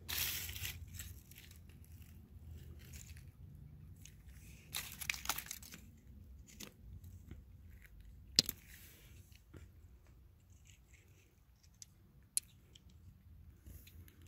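Rustling and crunching of dry leaves and loose stones being moved by hand, with a few sharp clicks of stone on stone. The loudest rustle comes at the start, another about five seconds in, and the sharpest click about eight seconds in.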